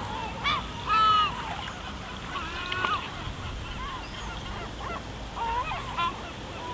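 Seagulls calling: many short, overlapping cries, the loudest about a second in, over the steady low wash of the sea on a pebble beach.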